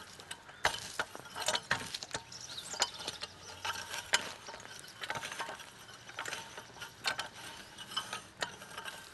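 Valley Oak wheel hoe with a tined cultivator attachment worked back and forth through garden soil: irregular clicks and rattles from the metal frame and tines as they drag through the dirt.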